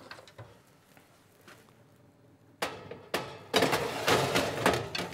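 Metal baking tray being slid into an oven and the oven handled: a couple of sharp clicks about halfway through, then a second and a half of metallic clattering and rattling.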